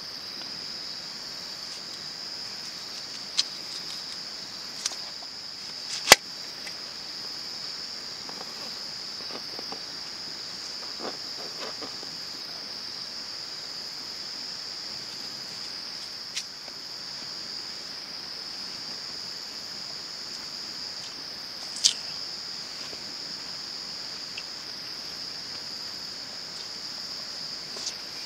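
A steady, high insect chorus of chirring, like crickets, with a few sharp clicks, the loudest about six seconds in.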